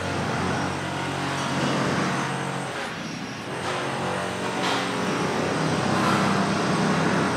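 A strange low droning noise made of several steady tones that sounds like machinery. It changes pitch and character about three seconds in and again around six seconds in.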